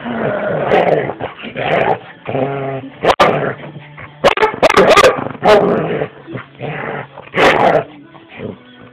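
Dogs barking and yipping in rough play, with whimpering in between; a run of loud barks comes in the middle.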